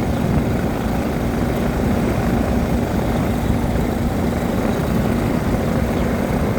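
Rheem central air conditioner's outdoor condensing unit running: a steady whoosh of the condenser fan with a steady low hum from the unit.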